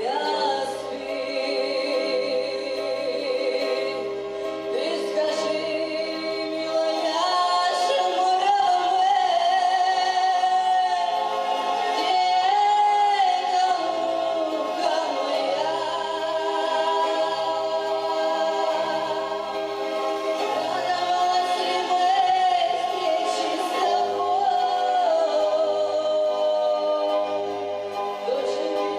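Women singing a Romani (Gypsy) song in long held, wavering notes over instrumental accompaniment with a steady, repeating bass pulse.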